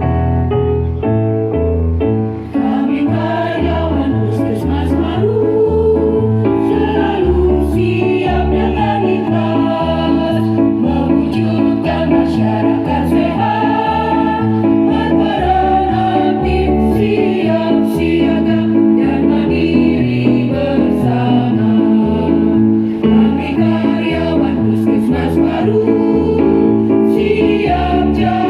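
Choir singing over instrumental accompaniment with a steady, regular bass beat.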